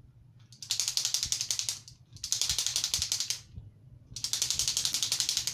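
Toy clapper played in three bursts of rapid, even clicking, each lasting about a second, recorded through a smartphone's built-in microphone.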